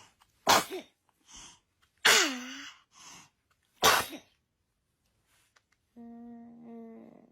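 A baby sneezing three times in quick succession, each sneeze a sharp burst, the middle one with a little voiced squeak that drops in pitch. Near the end comes a quieter steady pitched tone.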